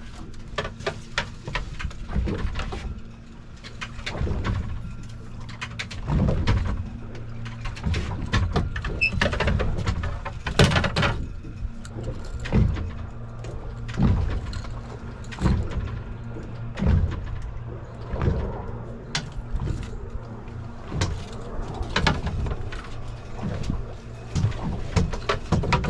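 Boat motor running steadily with a low hum, under irregular knocks and clatter from a rod and landing net being handled on the boat's deck.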